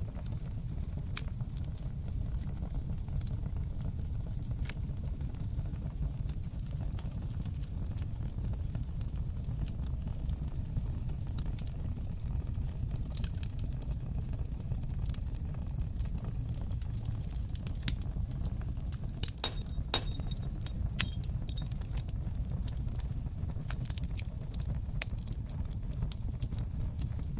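Fire burning in an open fireplace: a steady low rumble of flames with scattered, irregular crackles and pops, the sharpest pop about 21 seconds in.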